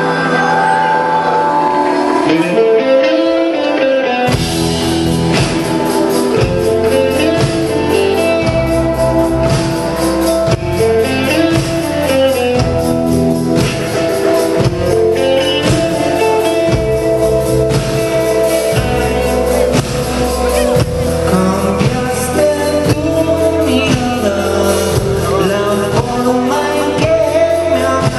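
Live rock band playing with a singer, guitars, bass and drums. About four seconds in, the drums and bass come in after a lighter opening.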